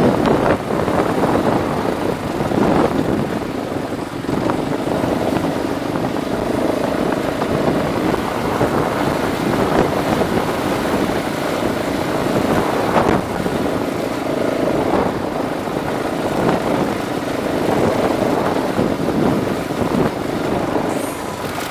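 A vehicle's engine running steadily as it is driven along a rough dirt track, mixed with the continuous rumble of tyres over dirt and stones.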